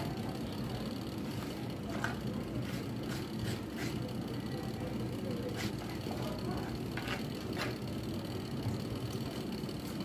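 Air fryer running with a steady hum and a thin high whine from its fan, with a few faint knife taps on a wooden cutting board.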